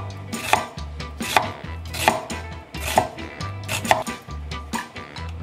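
Kitchen knife chopping an onion on a wooden cutting board: sharp knocks of the blade hitting the board, slow and spaced about one a second.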